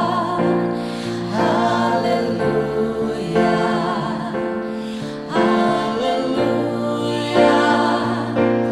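Background music: slow, held chords with singing over them.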